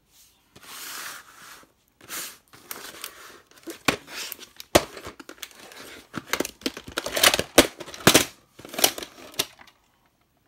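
Hard plastic VHS clamshell case handled and slid about on a wooden floor: rustling scrapes broken by several sharp plastic clacks.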